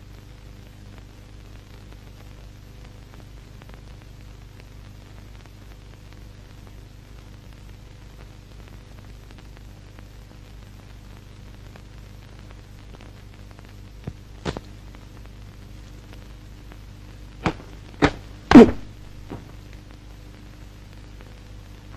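Steady hum and hiss of an old film soundtrack. Late on, six short sharp thuds come in two clusters, two close together and then four, the third of the four much the loudest.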